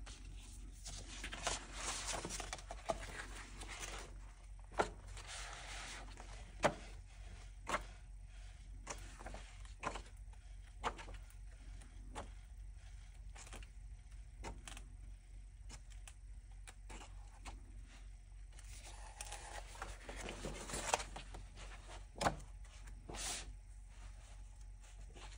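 Pages of a hardcover book being turned by hand: paper rustling and sliding, with sharp flaps and taps as pages fall. The longer rustles come about a second in, around five seconds and again near twenty seconds.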